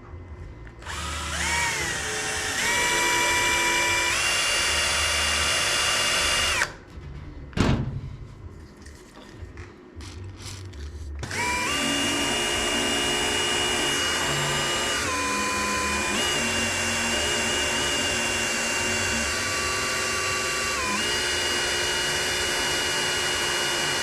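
Electric drill running in two long runs. It winds up about a second in, speeds up in steps and stops after about six seconds, with a sharp click shortly after. It then runs again steadily from about eleven seconds to the end, slowing briefly twice. The bit is barely cutting, so the drill spins with little progress into the work.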